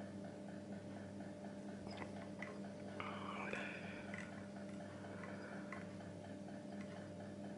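Faint handling sounds from fly tying at the vise: a few light clicks about two seconds in, then a brief rustle of thread and fingers about three to four seconds in. Under them run a steady low hum and a faint, fast, regular ticking.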